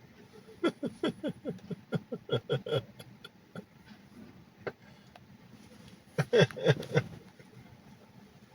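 Fart sounds played through a Tesla's speaker: a rapid sputtering run of short, pitch-sliding blasts for about three seconds, one lone blast, then a second short burst of several more near the end.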